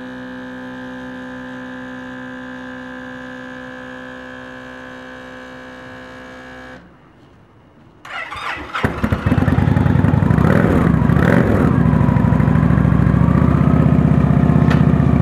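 A steady hum for about the first seven seconds. After a short pause, the Victory Hammer 8 Ball's V-twin is started about eight seconds in through its custom PM American Cycles exhaust, revved twice and left running loud.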